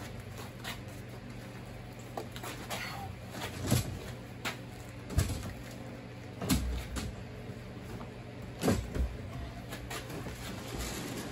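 Several dull knocks and thumps as the latex and fiberglass pieces of a mold are lifted, bumped and set down, over a steady low hum.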